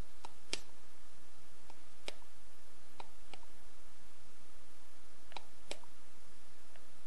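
A handful of short, sharp clicks at uneven intervals, several in close pairs. They come from a hand-held carburetor pressure tester, a pump with a gauge, being worked and handled while a chainsaw carburetor is pressure-tested for leaks.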